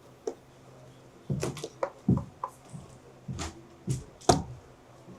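A 3D-printed magnetic mount being handled, pulled off and set back against its metal base: a string of separate sharp clicks and knocks, about nine in five seconds.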